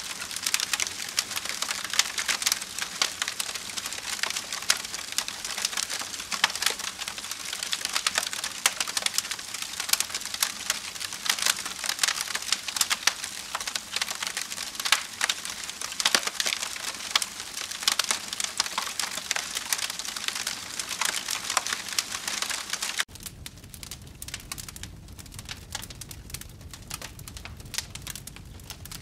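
Wood campfire crackling and popping, a constant stream of sharp snaps over a soft hiss. Near the end it changes suddenly to quieter, sparser crackles over a low rumble.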